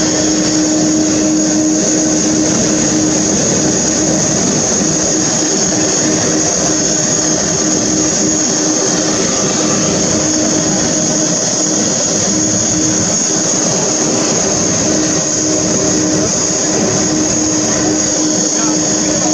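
Emirates Airbus A380 jet engines running steadily, a constant low hum with a high whine running through the noise.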